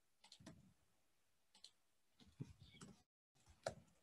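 Faint, irregular computer-keyboard keystrokes: a few soft clicks, some single and some in short clusters.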